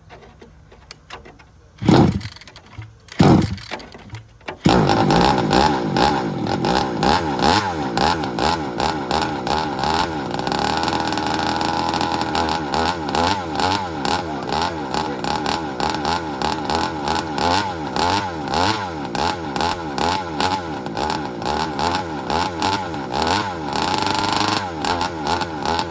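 36cc two-stroke gas engine of a Rovan RC car being started: two brief sputters, then it catches about four and a half seconds in and runs, its pitch rising and falling over and over as the throttle is worked. The engine is on a deliberately rich tune.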